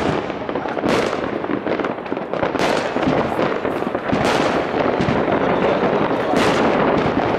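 New Year's fireworks going off all around: a continuous dense barrage of bangs and crackling, with sharper single bangs standing out every second or two.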